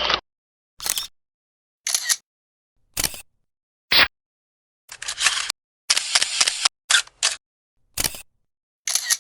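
A series of different camera shutter sounds, one about every second, each a short click of about half a second. Near the middle a few are longer, a quick rattle of several clicks.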